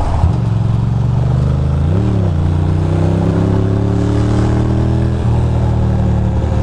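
Ducati Monster 620's air-cooled L-twin engine running under way, with a quick rise and fall in revs about two seconds in, then a slow climb in revs that drops off suddenly about five seconds in.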